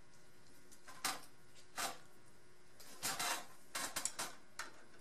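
Light metal clicks and clinks as the garage door opener's straight and curved door-arm pieces are handled and lined up for bolting: a single click about a second in, another just before two seconds, then a quick run of clinks in the second half.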